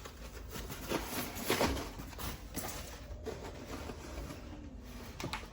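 Rustling and crinkling of packaging and handling noise as the boxed motorcycle shock is unwrapped and moved about, with a few sharper crackles, over a steady low hum.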